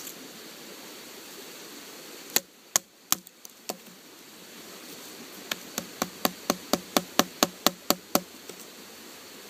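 Carbon-steel bushcraft knife (Condor Bushlore) chopping at a wooden stick laid on a log: four scattered sharp wooden knocks, then after a short pause a quickening run of about thirteen chops, reaching some five a second.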